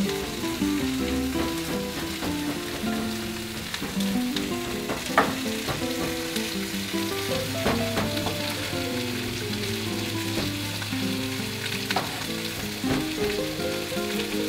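Chicken pieces searing in olive oil in a hot pan, a steady sizzle, with a few sharp taps of a chef's knife mincing garlic on a cutting board, over soft background music.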